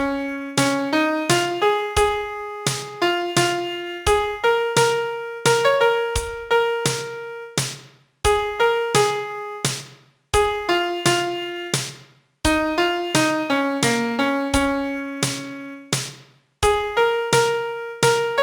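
Piano sound playing a single-line melody one note at a time, each note struck and left to fade, in short phrases with brief pauses between them.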